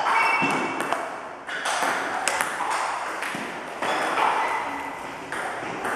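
Table tennis balls clicking off the table and the rackets in a fast multiball drill, several hits a second.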